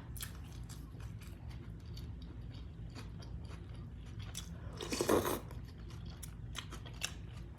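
Close-up chewing and biting sounds of a person eating beef soup with tortillas: scattered small wet clicks, with one louder sound about five seconds in lasting about half a second. A steady low hum runs underneath.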